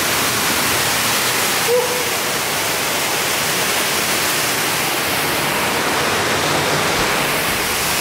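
Steady rush of a waterfall pouring into a cave pool, with a brief human call about two seconds in.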